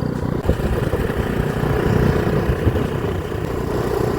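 Motorbike engine running steadily while riding along a road, with wind rumbling on the microphone.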